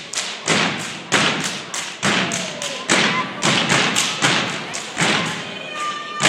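Step team stomping and clapping in a fast rhythmic pattern, about three hits a second, each hit echoing.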